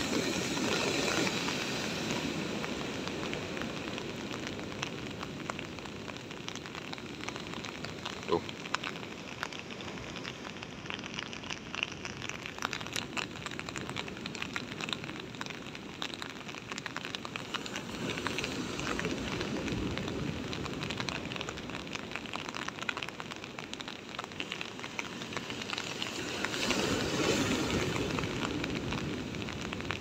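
Heavy ocean surf breaking and washing in around a concrete tetrapod breakwater, a steady rush that swells louder at the start and again near the end as big waves break. Rain falls throughout, heard as many small crackling ticks.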